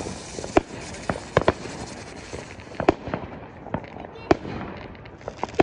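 Consumer fireworks going off at street level: a string of sharp bangs at uneven intervals over a steady crackling hiss.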